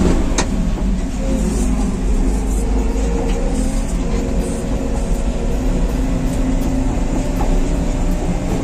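Diesel engine of an Escorts TRX15 pick-and-carry crane running steadily while the crane drives, heard from inside the cab, with a few light clicks and rattles.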